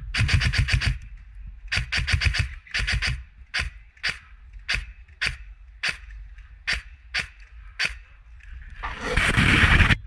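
Airsoft Scorpion EVO electric gun firing: a rapid full-auto burst, two short bursts, then single shots at about two a second. Near the end there is a loud rush of noise lasting about a second.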